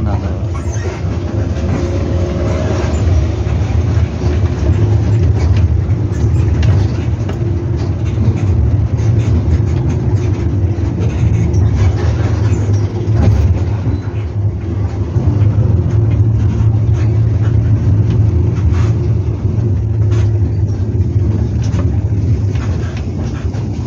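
Nissan Diesel CB87L bus's diesel engine and 'ngorok' (snoring) exhaust running while the bus is under way, heard from the rear seat inside the cabin: a loud, steady low drone that swells and eases a little, with occasional short knocks from the bus body.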